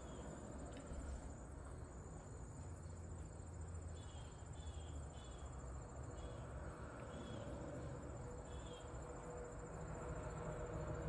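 Faint, steady, high-pitched trill of insects, with a few short chirps scattered through and a low rumble beneath.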